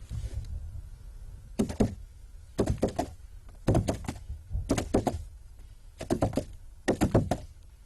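Foley horse hoofbeats at a gallop: hand-held hoof props struck on a bed of straw and earth, in groups of several quick thuds about once a second.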